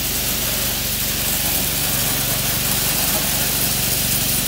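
A small engine running steadily, with the hiss of a long water stream shot from a soft-wash spray nozzle.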